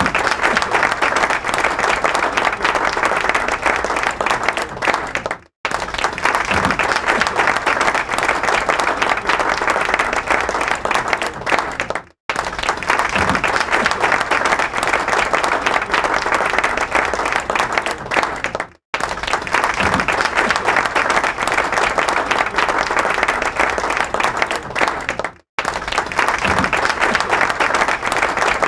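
Large audience applauding steadily, a dense wash of clapping. It cuts out for a split second four times, about every six and a half seconds, as the recording restarts.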